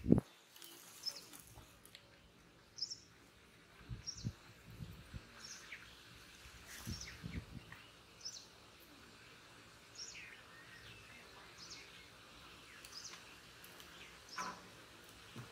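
Birds calling in the background, short high chirps repeating about once a second over faint outdoor ambience. A sharp click right at the start and a few soft low thumps.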